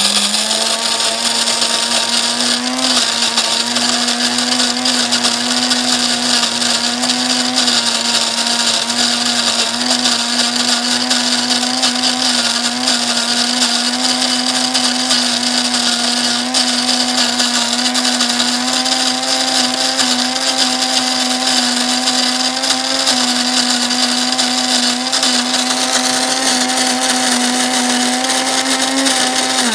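Cuisinart electric burr coffee grinder switching on and running, grinding coffee beans at a medium setting: a loud, steady motor hum with a grinding hiss, creeping slightly higher in pitch over the run and stopping at the end.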